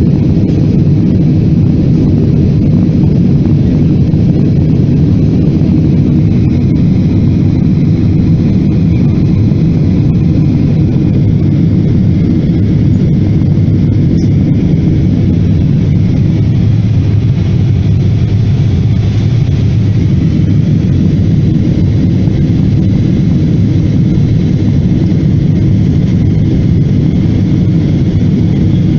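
Jet airliner in flight, heard from inside the passenger cabin: a loud, steady rumble of engine and airflow noise, with a faint high whine above it.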